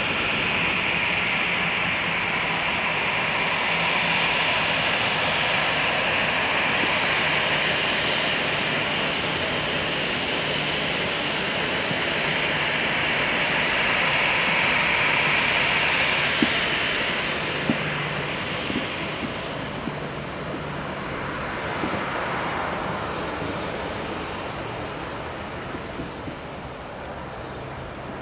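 Airbus A319 jet engines running as the airliner rolls along the runway after landing: a steady, hissing jet noise that holds for about sixteen seconds and then fades as the aircraft moves away.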